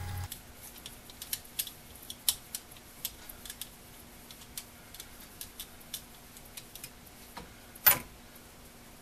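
Scattered light metallic clicks and ticks of a folding hex key turning Allen bolts on a Skil rotary hammer's front housing, with one louder knock near the end as the key set is put down on the bench.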